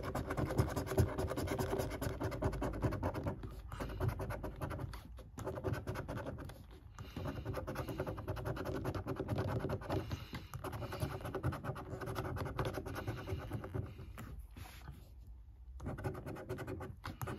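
A coin's edge scratching the latex coating off a lottery scratchcard in quick repeated strokes, stopping briefly several times.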